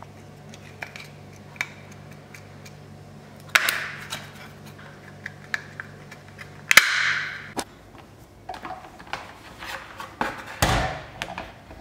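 Sharp plastic clicks and snaps as a white plastic switch housing is pressed together and closed, with one loud snap about seven seconds in, over a steady low hum that stops shortly after. Near the end, knocks and rattles as a plastic desk fan is handled, with one heavy knock.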